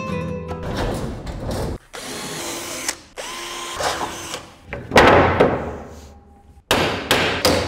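Power drill running in several short runs as it is driven into the wall behind the workbench, with a loud knock about five seconds in and the drill starting again suddenly near the end. Guitar music fades out at the start.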